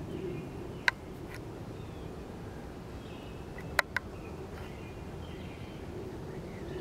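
Outdoor background hum with faint, short bird chirps, broken by three sharp clicks: one about a second in and two in quick succession near the middle.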